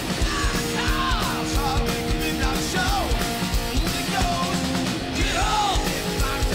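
Live rock band playing loudly: distorted electric guitars and a drum kit, with high, bending lines over the top.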